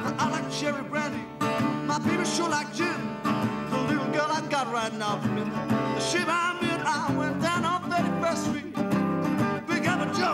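Resonator guitar played with a bottleneck slide in an acoustic blues: fingerpicked bass notes under high notes that slide and waver in pitch.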